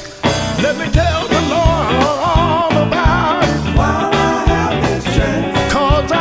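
Gospel quartet recording: a lead voice sings a melody with wide vibrato over a band with bass and a steady beat, after a brief break right at the start.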